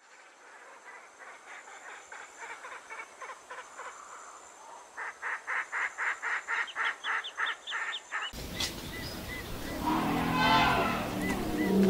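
A fast run of short, evenly repeated animal calls, about four a second, growing louder midway. About eight seconds in it cuts off suddenly and a louder mix of calls and sounds begins.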